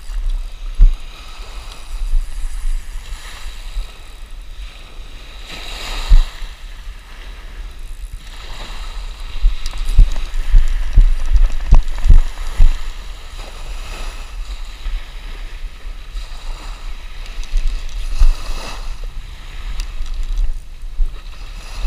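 Wind rumbling on the microphone over small waves washing onto the sand, with a few loud thumps about six seconds in and again around ten to thirteen seconds in.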